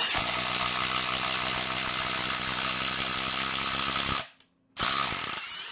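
DeWalt DCF887 cordless impact driver hammering at max power as it drives a 1-inch stubby ship auger into a hardwood beam. It runs steadily for about four seconds, stops briefly, then gives a second short burst of about a second. The auger's flutes pack with wood chips until the bit jams.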